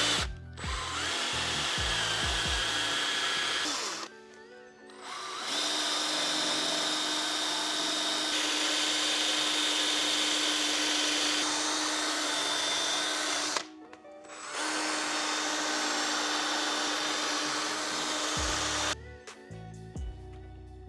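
Handheld power tool buffing a metal exhaust tip with a polishing pad: a steady high whir, stopping twice briefly and cutting out near the end.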